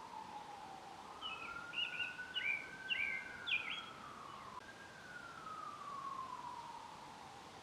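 An emergency-vehicle siren in a slow wail, its pitch rising and falling over several seconds. A small bird gives about six quick chirps over it, from about one to four seconds in.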